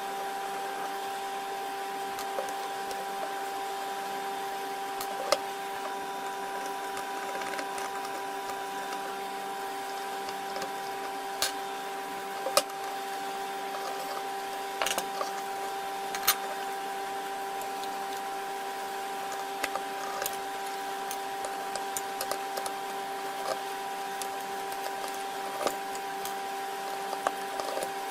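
A small motor running steadily with an even, unchanging hum, with scattered sharp clicks and taps over it.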